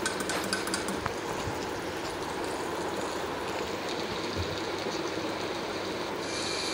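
Chopped okra and green chillies sizzling steadily in hot oil in a black iron karahi, about half fried. A few light clicks sound in the first second.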